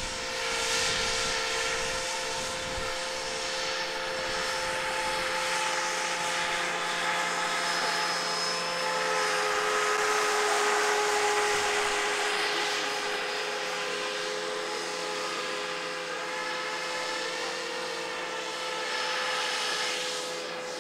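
Motors of radio-controlled model boats running, several steady whines at slightly different pitches, one drifting a little lower partway through, over a hiss.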